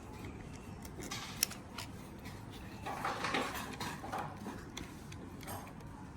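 Faint handling sounds of a PL18EV Lite radio controller being taken apart by hand and tool: a few light clicks, then about a second and a half of scraping and rustling around three seconds in.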